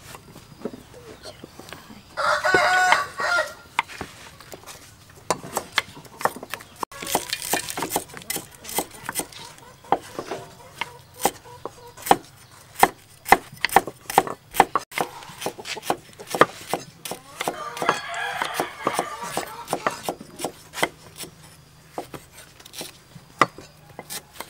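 Cleavers and knives chopping on wooden chopping boards, an uneven run of sharp knocks as tomatoes and garlic are cut. A rooster crows loudly about two seconds in, and another chicken call comes around eighteen seconds in.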